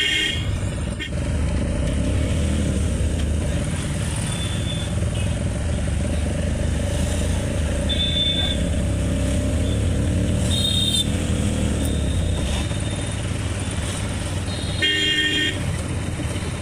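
Steady engine and road rumble heard from inside a moving vehicle in city traffic. Short vehicle-horn toots sound around it: one right at the start, one about eight seconds in, one about eleven seconds in, and the loudest about fifteen seconds in.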